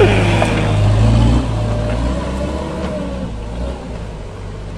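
A loaded light cargo truck's engine labouring as the truck passes close by and climbs a muddy slope. Its deep drone drops sharply about a second and a half in, then fades steadily as the truck pulls away uphill.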